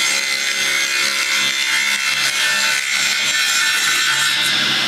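A panel saw's blade ripping a narrow strip of wood along the fence as the piece is pushed through, a loud, steady cutting noise over the hum of its 7.5 kW three-phase motor.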